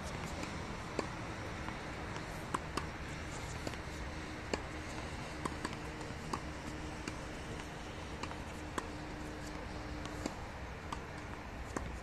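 Tennis balls being struck by rackets and bouncing on a hard court: a dozen or so short, sharp pops at irregular intervals over steady low background noise.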